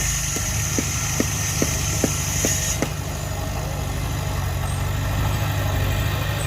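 Heavy diesel machinery engine running steadily at a low idle, with a regular clicking about two and a half times a second for the first three seconds.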